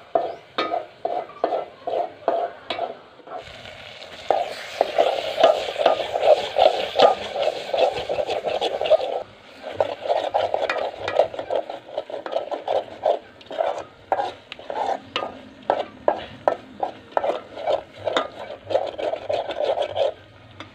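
A slotted metal spoon scraping and stirring spice masala frying in oil in an aluminium pot, in quick repeated strokes about three a second, with frying sizzle under the strokes that grows louder for a few seconds after the start.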